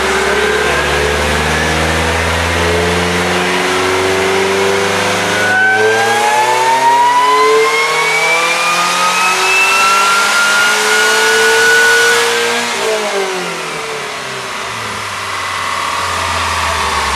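Supercharged Pontiac Solstice making a dyno pull: the engine revs climb steadily for about twelve seconds, with a high whine rising above the engine note from about five seconds in. Then the revs drop off quickly and settle back to a steady lower run.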